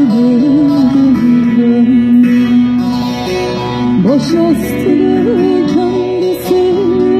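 Turkish folk music on plucked string instruments: a single ornamented melody line with quick turns, over steady held notes.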